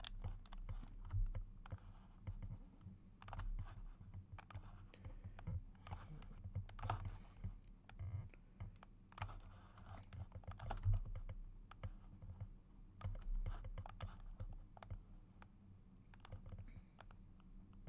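Computer keyboard keys and mouse buttons clicking irregularly, over a low steady electrical hum.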